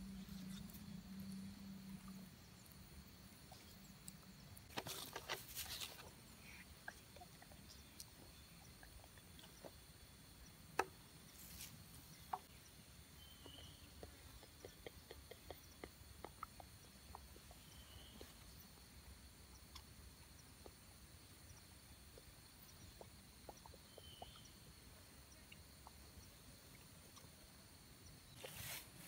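Quiet outdoor ambience: a faint steady insect drone, with scattered small clicks and rustles from handling food and a few short faint chirps. One sharper click about eleven seconds in.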